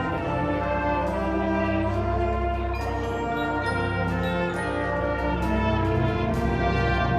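Indoor winds ensemble's brass section playing sustained, swelling chords, with occasional percussion strikes.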